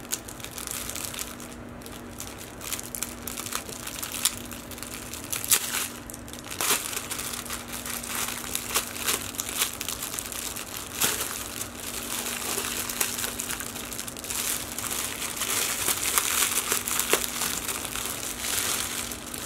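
A clear plastic packaging bag crinkling and crackling as it is handled and tugged open, with many sharp crackles. A faint steady low hum runs underneath.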